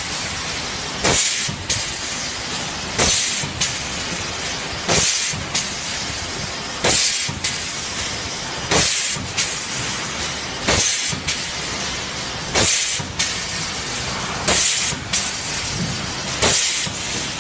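Short blasts of compressed air hissing from a hand-held hose nozzle. Each strong blast is followed about half a second later by a shorter one, and the pair repeats about every two seconds over a steady factory hum.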